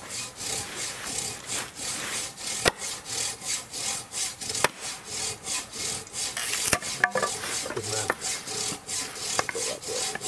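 Hand saw cutting through cedar wood in quick, even back-and-forth strokes, with a few sharp knocks along the way.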